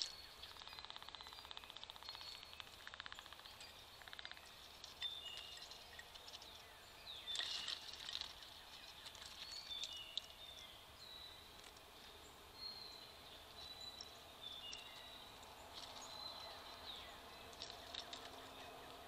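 Wild birds calling: short chirps and whistled notes scattered throughout, with a fast, faint rattle in the first few seconds.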